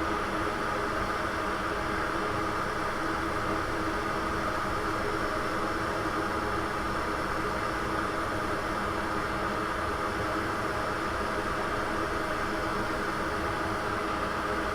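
Steady whirring of a fan on a micro-soldering bench, running without change.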